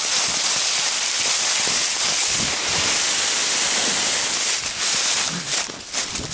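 Someone running through dry leaf litter in woods, a steady loud rushing noise. Near the end it breaks into separate crunching footfalls in the leaves.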